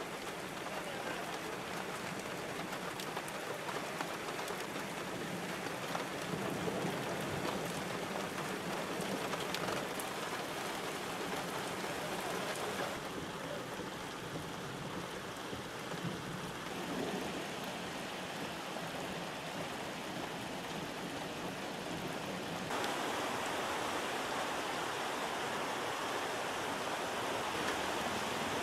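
Steady hiss of heavy rain and floodwater running through a street. The sound changes abruptly twice, about 13 and 23 seconds in. Over the last few seconds it is a muddy flood torrent rushing through brush.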